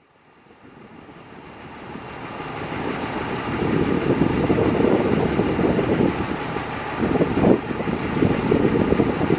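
Fire truck engine running, fading in over the first few seconds and then steady.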